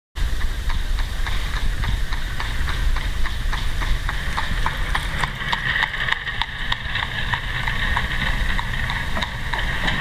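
Horse hooves clip-clopping in a steady rhythm, about four beats a second, over a low rumble.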